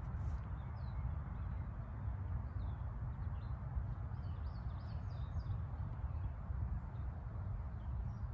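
Steady low rumble of wind on the microphone, with faint, scattered bird chirps through the middle.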